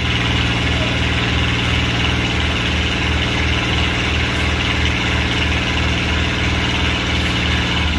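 Diesel engine of an enclosed lifeboat running steadily with an even low pulsing throb, under a function test of the boat's propulsion.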